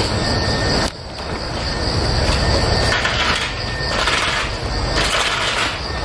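Roofing work on a traditional clay-tile roof: tiles clinking and scraping against each other over a steady rushing background noise, with a short dip about a second in.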